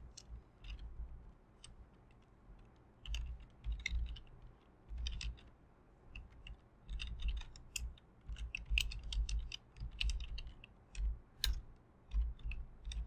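Typing on a computer keyboard: irregular runs of quick key clicks with dull thuds, broken by short pauses.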